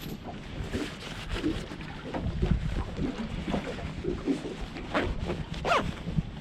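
Wind buffeting the microphone on a small boat, a steady low rumble. Scattered light knocks run through it, and a short squeak near the end slides down in pitch.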